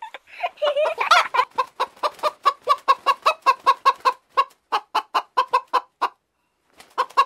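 Hen clucking in a fast, steady run of short clucks, about four a second, with one louder, longer call about a second in. The clucking breaks off briefly near the end, then starts again.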